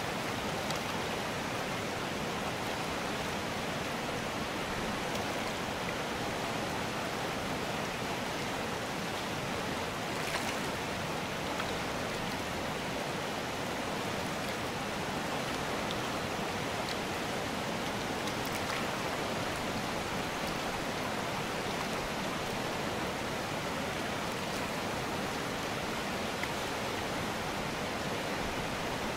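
Fast mountain river running over stones and rapids: a steady, even rush of water.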